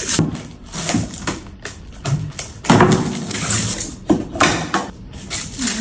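Handling noises: an irregular run of rustles, taps and knocks, loudest about three seconds in.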